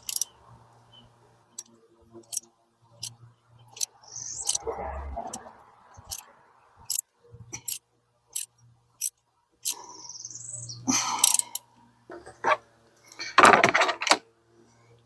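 Ratchet on a 16 mm spark plug socket clicking in short strokes, about one click every half to one second, as a spark plug is slowly loosened from a GM 1.4L turbo Ecotec engine. Light scraping and a couple of brief squeaks come between the clicks, and a louder metallic clatter comes near the end.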